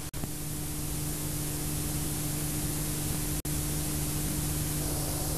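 Steady tape hiss with a low steady hum from an old VHS recording, dropping out for an instant twice: just after the start and about three and a half seconds in.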